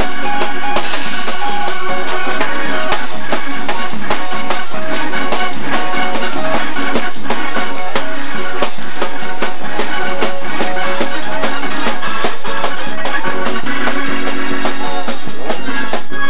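Church praise-break music: an organ holding chords over a drum kit playing a steady, fast beat with cymbal hits.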